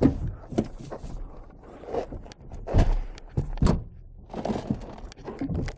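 Several thumps and clunks of the fold-down rear seats in a pickup's cab being handled. Uneven knocks with short rustling handling noises, the loudest about three seconds in.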